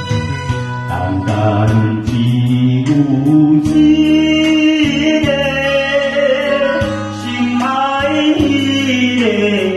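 A man singing into a microphone over karaoke backing music, holding long notes and sliding down in pitch on one near the end.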